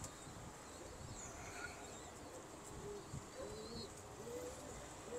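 Domestic pigeons cooing faintly, several short low coos, with a few faint high chirps above them.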